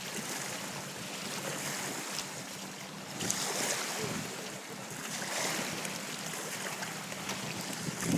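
Lake water splashing and lapping, with wind buffeting the microphone; the hiss swells briefly about three seconds in and again about five seconds in.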